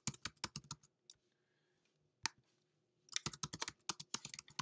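Typing on a computer keyboard: a quick run of keystrokes, a single click in the middle, then another quick run of keystrokes near the end.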